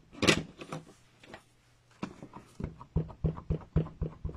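Clear acrylic stamp block dabbed onto an ink pad: a few knocks at first, then about two seconds in a run of quick taps, about five a second.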